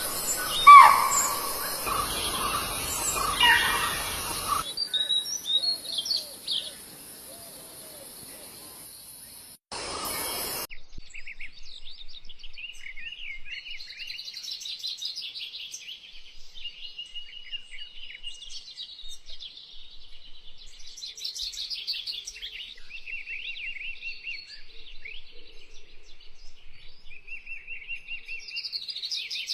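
Many small birds chirping and singing in a dense, continuous chorus of rapid high trills and twitters. In the first few seconds there are instead a few louder calls that fall in pitch.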